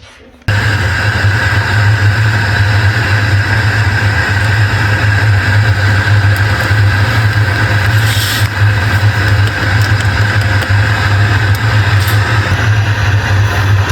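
Car engine and road noise heard from inside a car, a loud, steady low hum that starts abruptly about half a second in.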